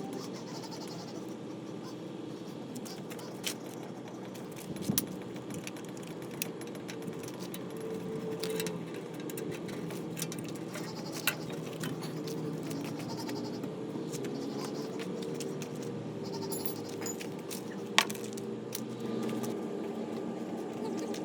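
Metal tools and engine parts clinking now and then as a motorcycle engine is taken apart, the sharpest clink about 18 seconds in, over a steady low hum.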